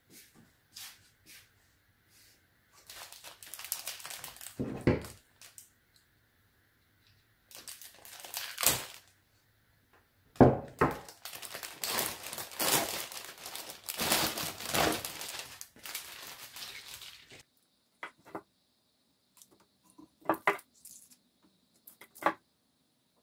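Crinkling and rustling in three stretches, the last and longest running for about seven seconds, then a few light clicks near the end.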